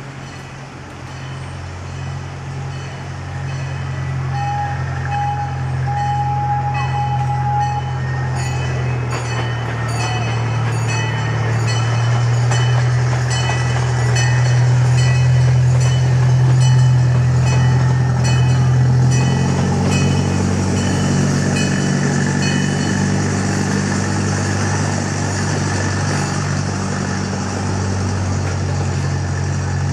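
A large engine running steadily and growing louder over the first fifteen seconds or so, then shifting to a slightly different pitch about twenty seconds in. A short, high whistle-like tone sounds a few seconds in.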